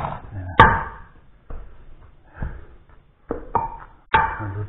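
A kitchen utensil knocking against a bowl while mashed potato is mixed: one sharp clink about half a second in, then a few lighter knocks near the end, each with a brief ringing tone.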